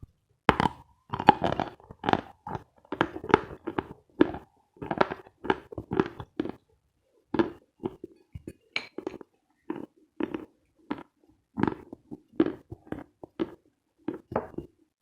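Close-miked chewing of chalk: a steady run of crisp crunches, about two to three a second, with a short lull a little past the middle.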